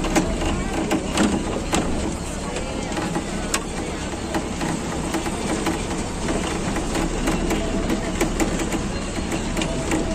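Indistinct voices over a steady low rumble, with frequent small knocks and clicks.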